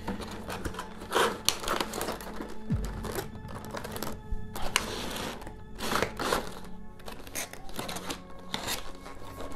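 Board-game pieces and packaging being handled and packed away: irregular rustling, clattering and knocks, loudest in bursts about a second in and again around the middle. Background music plays under it.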